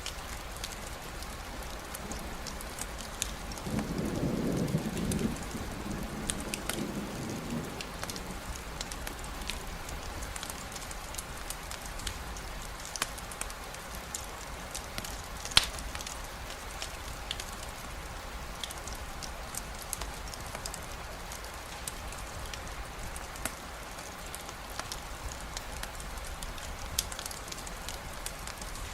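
Steady rain with scattered sharp drop ticks, and a low rumble of distant thunder from about four to seven seconds in. A single sharper tick stands out about halfway through.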